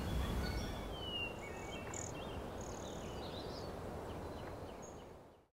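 Outdoor ambience: a steady background hiss with scattered short bird chirps and calls, fading out near the end.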